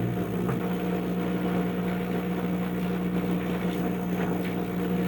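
Repurposed 80 CFM bathroom ceiling exhaust fan running with a steady electrical hum.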